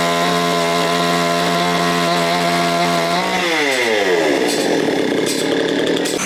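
Sawmill saw running at a steady pitch, then dropping in pitch over about a second, about three and a half seconds in, and turning into a rough, noisy sound.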